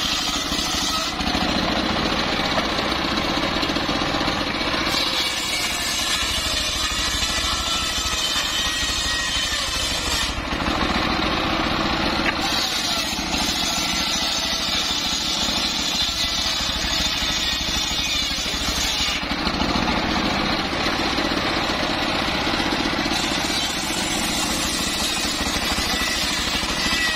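Homemade engine-driven circular saw bench running steadily as its blade rips lengthwise through teak logs. The cutting sound swells and eases every few seconds as each pass goes through the wood.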